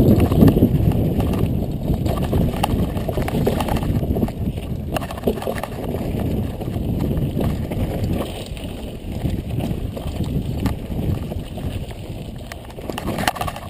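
Mountain bike riding down a rough dirt singletrack: a steady low rumble of tyres on dirt and rocks mixed with wind on the microphone, with scattered clicks and rattles from the bike over rocks, gradually getting quieter.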